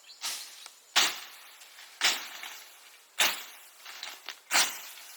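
A blade chopping into wood with sharp strokes, about one a second, each dying away quickly.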